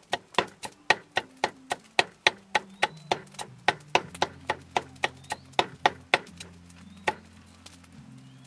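Large knife chopping quickly through a fresh galangal root, about four sharp cuts a second, the slices dropping into a wooden mortar. The chopping stops about six seconds in, with one last cut about a second later.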